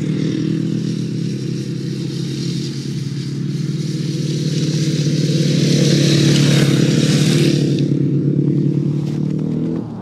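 Single-cylinder ice speedway motorcycle engine running hard at steady revs as the bike circles on spiked tyres, growing loudest as it passes close about six seconds in, with a hiss of ice spray that drops away shortly after, then fading near the end.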